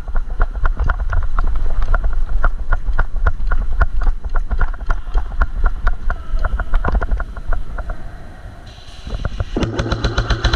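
Running footsteps with gear rattling, about four steps a second, over low rumble on the microphone. Near the end comes a short rapid string of shots from an electric airsoft gun on full auto, its motor humming under the clicks, stopping sharply.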